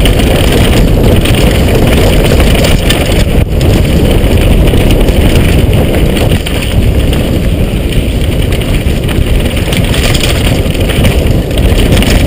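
Loud, steady rush of wind buffeting the microphone, mixed with the rolling noise of a downhill mountain bike descending a trail.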